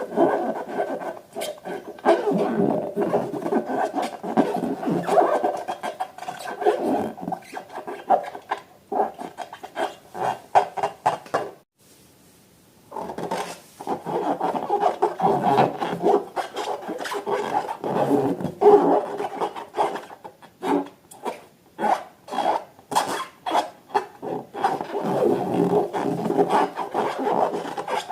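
Close rubbing and squishing handling sounds with many small crackles and clicks, typical of slime being worked by hand. They stop for about a second and a half around twelve seconds in, then resume.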